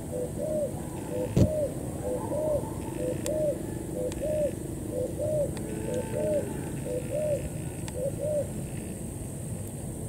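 Spotted dove cooing: a steady run of soft, arched coos, about one a second, that stops near the end. A single sharp knock sounds about a second and a half in.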